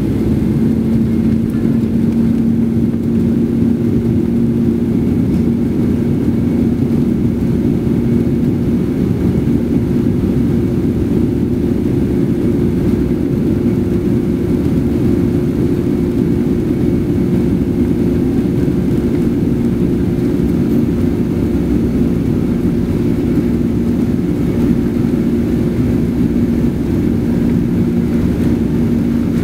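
Cabin noise of a Boeing 767-300 on its takeoff roll: the jet engines running at takeoff power, heard from inside as a steady low rumble with two steady hums.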